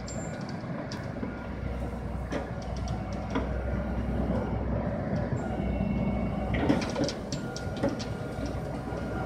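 Diesel engine and hydraulics of a knuckle-boom grapple loader truck running steadily as the grapple is worked down into a pile of yard brush. A burst of cracking and snapping comes about two-thirds of the way in as the grapple bites into the branches.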